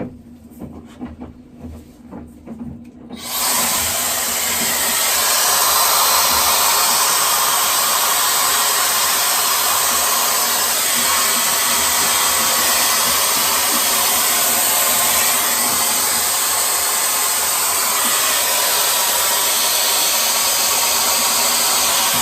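Tesa Air Stick hot-air styler switched on about three seconds in, then blowing steadily with a loud, even rush of air. Before it starts there are a few faint clicks and handling taps.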